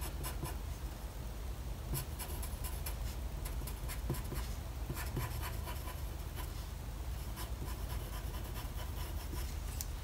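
Graphite pencil scratching on drawing paper in short, scattered sketching strokes.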